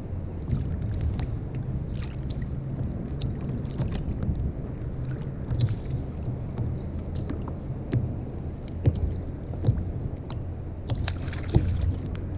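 Water slapping against a sit-on-top kayak's hull with wind on the microphone: a steady low rumble with scattered small clicks and knocks. Near the end, a hissing splash as a hooked fish breaks the surface beside the kayak.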